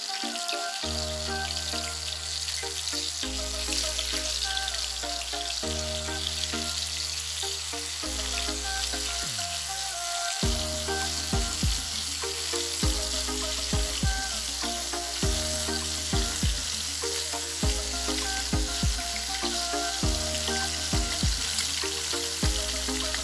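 Tamban (sardinella) fish frying in hot oil in a wok, a steady sizzle. Background music with held chords and a bass line plays over it, joined by a drum beat about ten seconds in.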